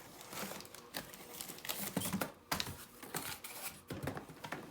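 Plastic toy and its packaging being handled: irregular clicks, taps and crinkling rustles.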